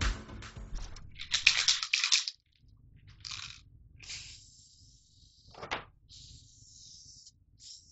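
Aerosol can of car spray paint hissing in several separate bursts, each lasting up to about a second and a half, as paint is sprayed onto a metal bracket. The loudest burst comes about a second and a half in.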